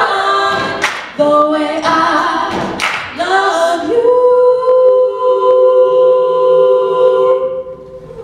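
Mixed-voice a cappella group singing in close harmony, moving through a few chords and then holding one long final chord that stops shortly before the end.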